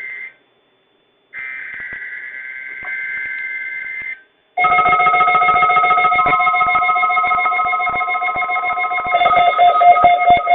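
NOAA Weather Radio SAME header data bursts, a screechy two-tone digital warble, come in two stretches with a one-second gap. About four and a half seconds in, the loud weekly-test warning alarm starts: steady tones with a fast pulsing rattle through them.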